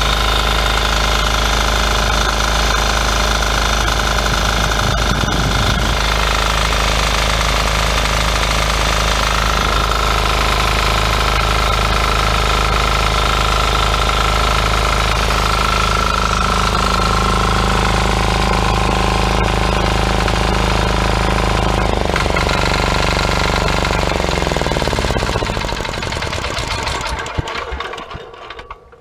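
178F single-cylinder air-cooled diesel engine, a Yanmar clone, running steadily. About 22 seconds in its speed drops, and it runs down to a stop over the next few seconds.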